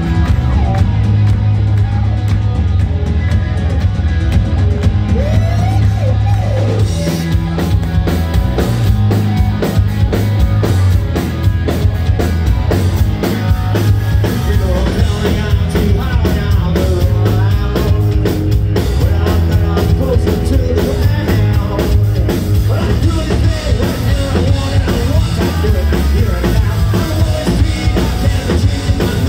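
Live rock band playing loud: distorted electric guitars, bass and a drum kit, with a lead singer's voice over the top, heard from the crowd.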